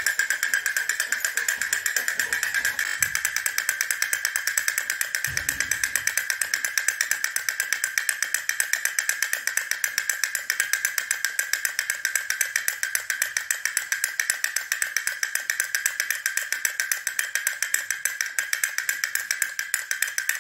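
Battery-operated toy cat beating its small toy drum, a fast, even clicking beat of several strikes a second over a steady high tone.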